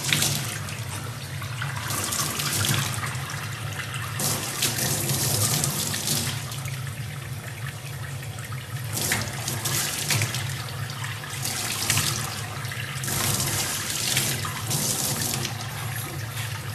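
Tap water running into a stainless steel sink, splashing as a young chimpanzee sits under the stream and puts its hands in it; the rushing swells and eases every second or two.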